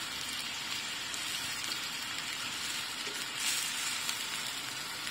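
Chicken breast pieces sizzling steadily as they are lightly pan-fried in oil, with the sizzle swelling briefly about three and a half seconds in.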